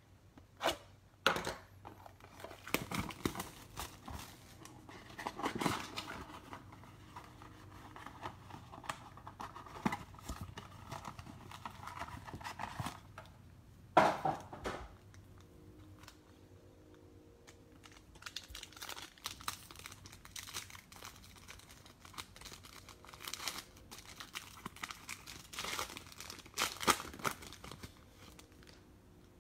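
A cardboard card box being torn open and foil trading-card pack wrappers crinkling and tearing, in irregular bursts of rustling, with the sharpest tear about halfway through.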